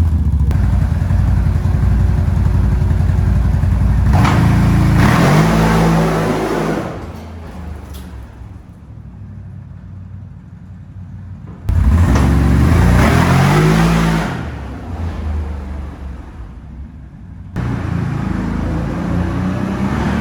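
2021 CFMOTO CForce 1000 XC ATV's V-twin engine running and being revved in a couple of blips that rise and fall back to a quieter idle. The level jumps abruptly twice.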